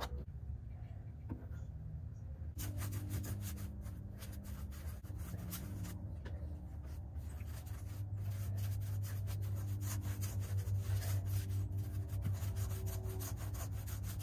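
A paintbrush scrubbing over the fiberglass inside of a boat hull in quick scratchy strokes, spreading PVA release agent over fairing compound; the strokes start a couple of seconds in, over a low steady hum.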